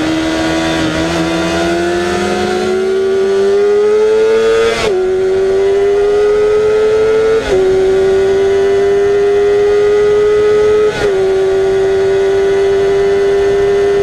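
Honda CBR400 NC23's inline-four engine at high revs under hard acceleration, its pitch climbing and then dropping with upshifts about five and seven and a half seconds in. It dips briefly again about eleven seconds in, then holds a steady high note to the end.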